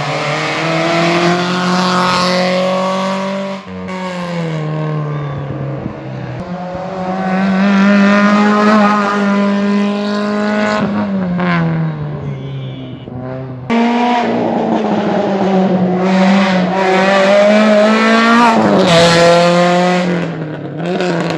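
Rally cars in a hill-climb race, running at high revs one after another in three passes. Each engine note climbs steadily, then drops sharply about 11 and 19 seconds in.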